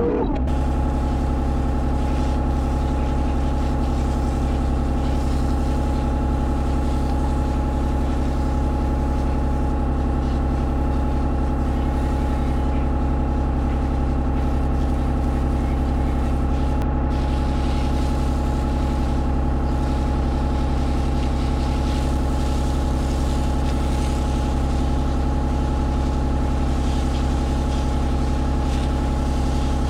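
Kubota 33 mini excavator's diesel engine running at a steady speed.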